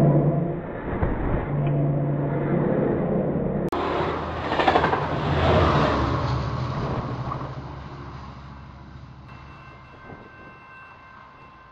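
Amtrak Pacific Surfliner passenger train passing close at speed. Wheels and rails clatter, air rushes, and the EMD F59PHI diesel locomotive's engine drones as it goes by. The sound fades away over the last few seconds, and faint steady ringing tones come in near the end.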